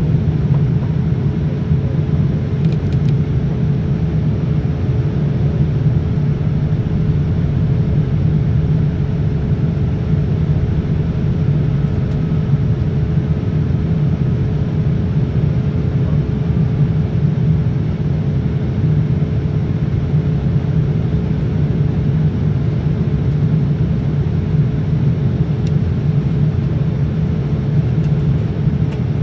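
Steady low rumble inside the cabin of a Boeing 787-9 in flight: the Rolls-Royce Trent 1000 engines and the airflow past the fuselage, heard from a window seat at the rear. A faint steady hum sits above the rumble.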